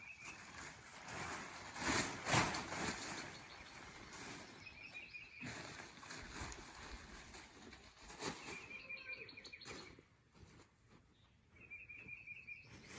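A songbird's short, rapid trill repeating about every four seconds, over rustling and crinkling of lightweight tent fabric being handled and spread out, loudest about two seconds in.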